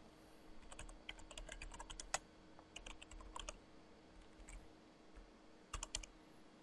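Faint typing on a computer keyboard: a quick run of keystrokes, a pause, a few more keys, then two louder key clicks near the end.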